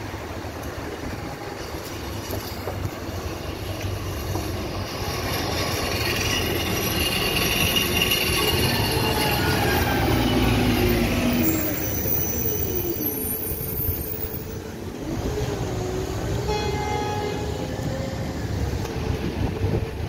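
Street traffic as a D1 Class tram and a concrete mixer truck pass close, loudest about ten seconds in, with high whining tones that fall in pitch as they go by. A brief pitched sound comes about seventeen seconds in.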